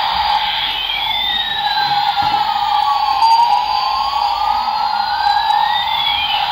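Battery-operated double-rotor toy military helicopter running with its sound effect on: a steady electronic whine, with a siren-like tone that slides down over about three seconds and then back up.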